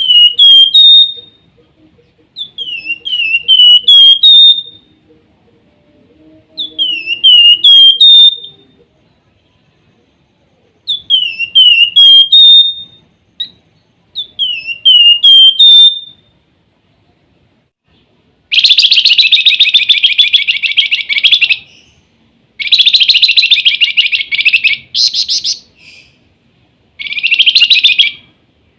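A flamboyan songbird sings a short whistled 'nyiul' phrase five times, about every three to four seconds. Each phrase is a few quick down-slurred notes ending on a higher note. From about eighteen seconds in it switches to three long, loud bursts of fast, scratchy trilling.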